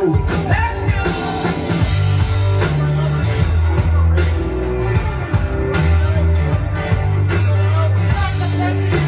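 Live rock band playing, with electric guitars over drums and a held, stepping bass line.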